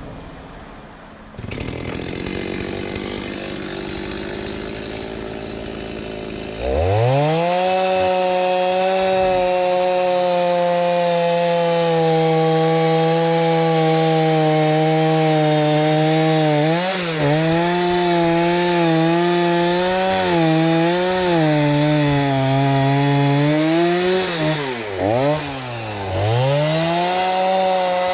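Two-stroke chainsaw cutting dried oak firewood. After a few seconds of quieter noise it revs up to a steady high-pitched full-throttle run about seven seconds in. Near the end its pitch sags and recovers several times as it bogs under load in the cut, with two brief throttle drops.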